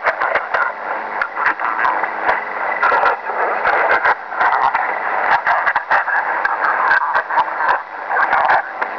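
Shortwave radio receiver on 7377 kHz in upper-sideband mode, giving out a continuous garbled, distorted signal full of crackles and clicks, with a faint steady low hum underneath. It is the sound of a broadcast received in the wrong mode, which the uploader identifies as Chinese music from a Chinese language program distorted by USB reception.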